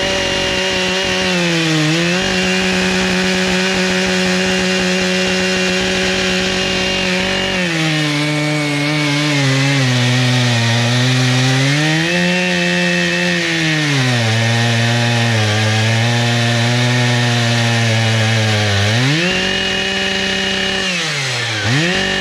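Chainsaw on an Alaskan mill, running at full throttle as it rips lengthwise through a butternut log. The engine note sags and holds lower under load for much of the middle as the bar bites into the wood, then rises again near the end.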